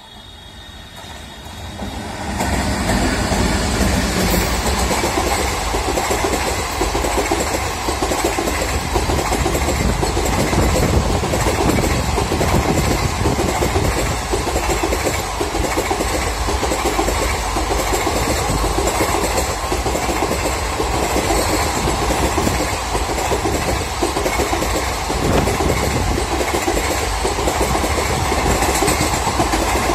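A train hauled by an electric locomotive, with a rake of yellow coaches, passing close by: the wheels running on the rails. The sound swells over the first two seconds or so as the train arrives, then holds steady and loud while the coaches roll past.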